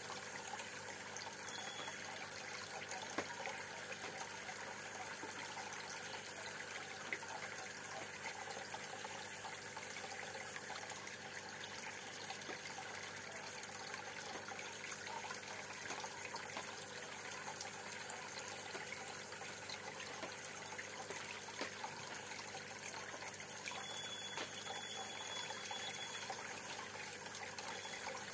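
Steady bubbling and trickling of water in a home freshwater aquarium, where a stream of air bubbles churns the water near the surface.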